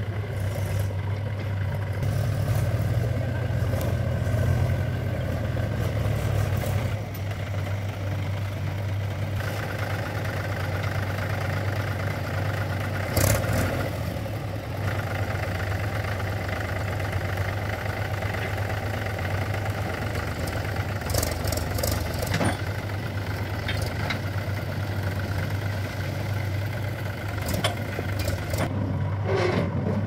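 Mahindra 275 DI tractor's three-cylinder diesel engine running steadily while the tractor tips its trolley of soil, a little louder for the first several seconds. A few sharp knocks come around the middle and again about two-thirds in.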